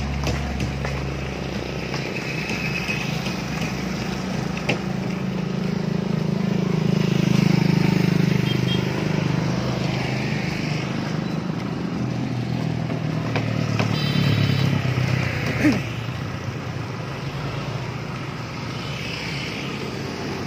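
Street traffic: a small motor vehicle engine running steadily close by, growing louder about seven seconds in and then easing off.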